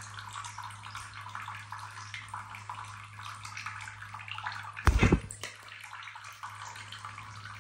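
Thin stream from a bathroom tap splashing into a ceramic sink where a monk parakeet is bathing, over a steady low hum. A brief loud thump comes about five seconds in.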